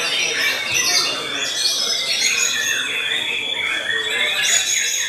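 White-rumped shamas (murai batu) singing at full volume, a dense run of varied whistles and chirps from several birds at once, over a steady high trill.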